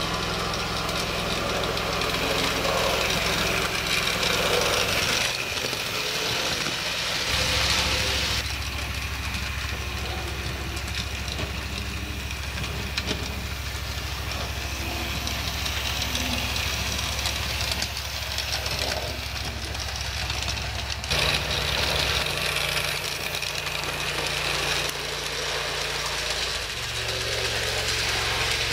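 Model train running on the layout: a steady low mechanical hum with a light hiss. The hum drops out briefly about five seconds in, then comes back, and shifts in pitch a few times near the end.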